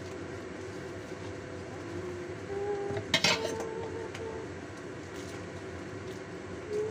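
Covered wok on a lit gas burner, a steady hiss of flame and simmering. About three seconds in comes one sharp metallic clink of a pot, dish or utensil.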